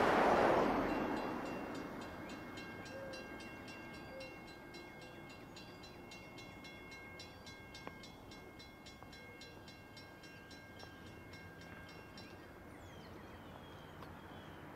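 A car driving past close by, its tyre and engine noise peaking about half a second in and fading away within two seconds. After it, a faint, rapid, even ringing that stops about twelve seconds in, and a few short falling bird chirps near the end.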